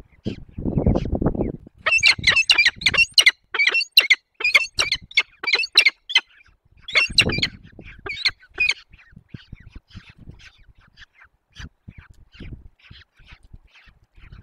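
Peregrine falcons at the nest giving a fast series of loud, harsh calls, about four a second, for some seven seconds before trailing off into fainter calls. A low rumbling noise comes shortly before the calls start and again briefly in the middle.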